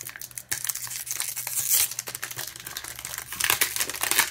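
Foil trading-card pack being torn open by hand: crackly crinkling of the foil wrapper, louder in a couple of stretches as the seam gives.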